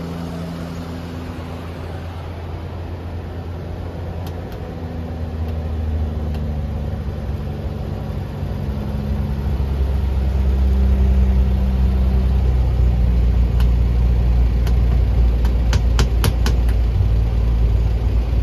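Vintage Toyota Land Cruiser's engine fast-idling on a cold start, its idle speed stepping down several times as the choke is pushed off. A few light clicks come near the end.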